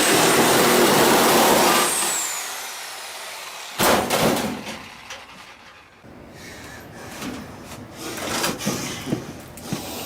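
Handheld power tool run loudly for about two seconds, its motor whine falling away as it spins down. A sharp knock follows near four seconds, then scattered clattering.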